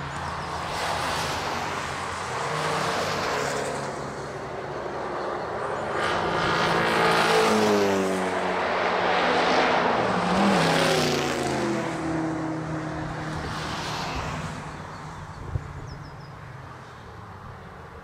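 Several trackday cars pass one after another through a corner, their engines swelling and falling away in pitch as each goes by. There is a short sharp knock about three-quarters of the way in.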